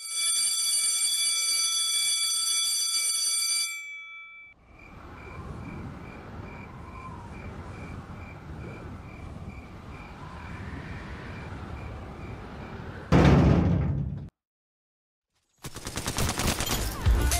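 A steady, high electronic alarm-like tone sounds for about four seconds and stops abruptly. A quiet outdoor-type ambience follows, then a short loud burst of noise, and upbeat music starts near the end.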